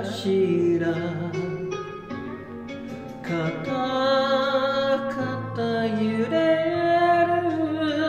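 A solo voice sings a slow Japanese ballad in long, held phrases over an instrumental accompaniment.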